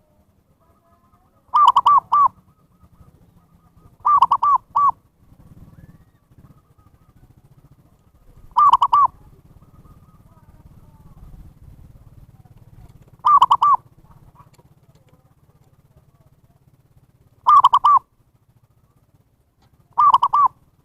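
Zebra dove cooing: six short phrases of two or three quick notes each, a few seconds apart, over a faint low hum.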